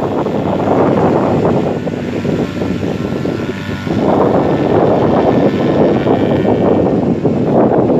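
Strong wind gusting across the microphone, with a paramotor's engine and propeller droning faintly underneath, clearest when the wind eases about two to four seconds in.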